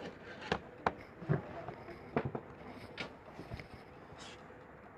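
Light clicks and taps, about seven in the first four seconds, of a small screwdriver and screws being fitted into a Samsung Galaxy J7 Prime's frame.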